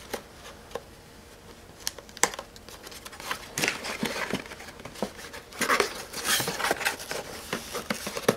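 A cardboard retail box being opened by hand: a few sharp clicks and taps as the box is handled and its end flap pried open, then scraping and rustling as the cardboard inner tray slides out.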